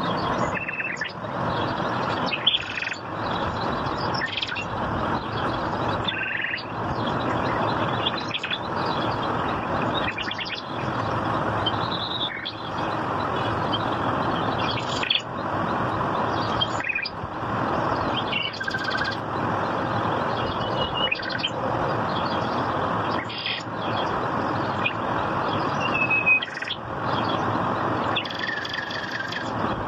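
Birds chirping and calling in short whistled notes over a steady rushing background noise.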